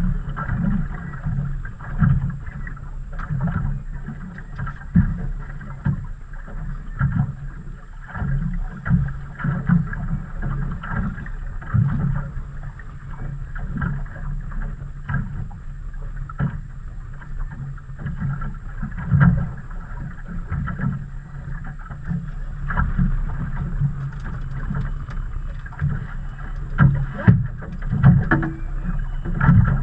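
Water slapping irregularly against the hull of a small fishing boat as it rocks on the chop, with low thumps every second or so.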